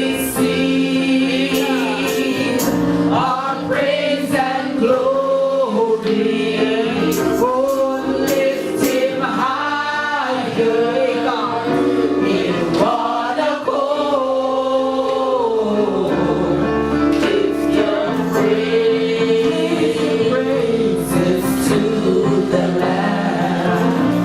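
Gospel singing in church: voices carrying a slow, sliding melody over steadily held instrumental chords.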